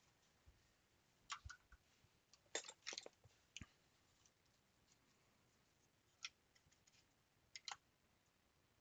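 Near silence broken by faint, scattered small clicks: a pair a little over a second in, a cluster around three seconds, and a few more later, the last pair near the end.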